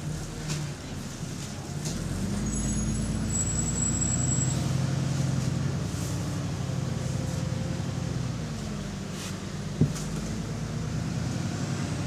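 A bus's diesel engine pulling away, heard from on board: a steady low drone that grows louder about two seconds in and then holds, with a brief high whistle near the start and a single sharp knock near the end.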